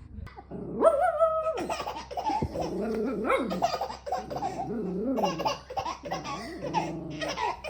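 A young child laughing, starting about a second in and going on in a long run of laughs.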